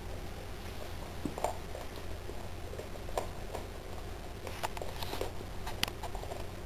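A Boxer dog chewing a raw fish: irregular short clicks and smacks of its mouth at work.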